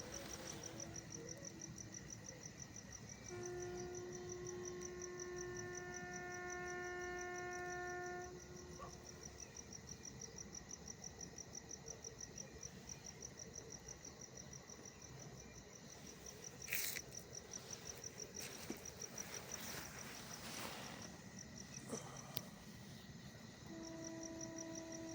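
Crickets chirping at night in a rapid, even, high-pitched pulse that never stops. A steady hum with overtones comes in for about five seconds near the start and again near the end, and there are a couple of brief rustles past the middle.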